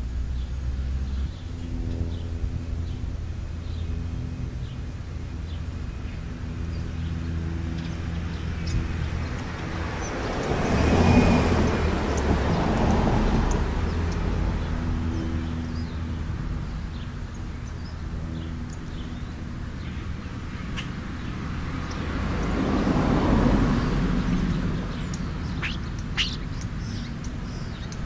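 A steady low engine hum, with two passing vehicles swelling up and fading, the first about ten seconds in and the second near the end. Faint bird chirps come through now and then.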